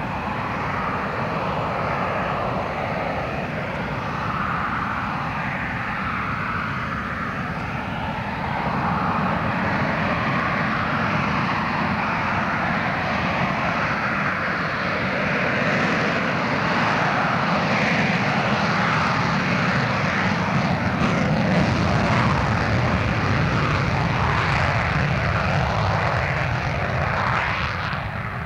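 English Electric Lightning's twin Rolls-Royce Avon turbojets running on the ground: a loud, steady jet roar with a shifting, swooshing quality. It gets louder about a third of the way in and again after the middle, then eases off near the end.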